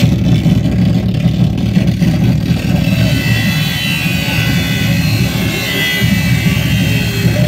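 Live noise music performance: a loud, dense low rumble with wavering tones sliding up and down above it.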